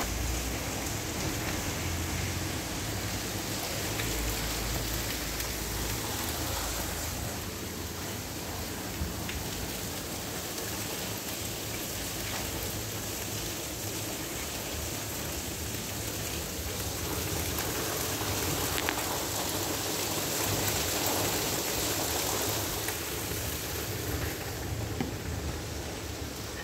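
Steady rain falling, with a few scattered drop ticks and a low rumble underneath that swells and fades.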